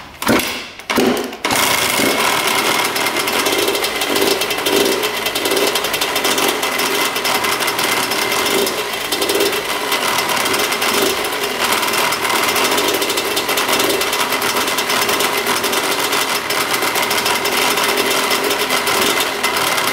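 A 1998 Kawasaki KX125 125cc two-stroke dirt bike engine fires after a couple of short bursts, then runs steadily about a second and a half in with a heavy, rapid rattling and banging, described as really bad. The owner cannot tell where the banging comes from, and wonders whether it is the chain, the power valves or something like a rod knock.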